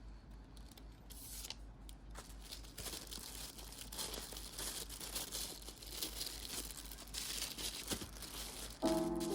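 Plastic packaging crinkling and tearing, with small rustles and clicks that get busier after the first few seconds. Background music comes in near the end.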